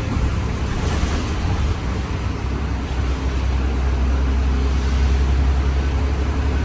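Inside a moving bus: a steady low engine drone with a hiss of road noise, swelling slightly near the end.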